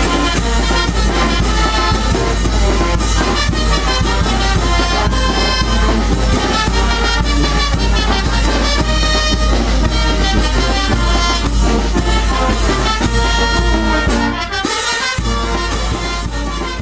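Mixe filarmónica brass band playing a lively tune with a steady beat; the music dips briefly near the end.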